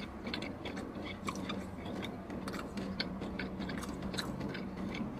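A person chewing and biting into fried chicken wings: many small, irregular crunches and mouth clicks.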